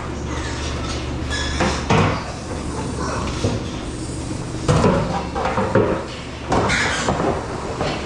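Steel hog-pen gates and panels clanking and rattling several times as they are swung and shifted, over a steady low hum.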